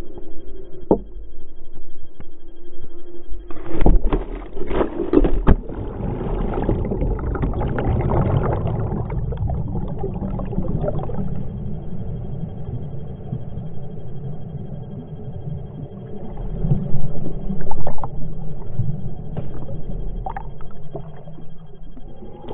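Rushing and sloshing water in an enclosed water slide as a rider slides down it with the camera in hand, with knocks and bumps of body and camera against the tube. It starts abruptly a few seconds in with several hard knocks, settles into a steady low rumble, and a burst of loud bumps comes near the end.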